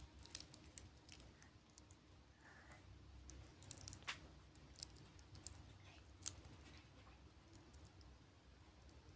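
Faint, irregular light clicks and ticks of a Fossil wristwatch's metal link bracelet and folding clasp being handled, as the links and hinged clasp knock together.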